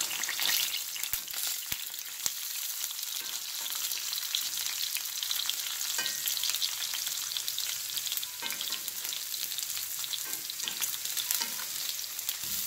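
Sausage links frying in hot oil in a cast iron skillet: a steady sizzle with crackling spatter, and a few light clicks of metal tongs as the links are turned.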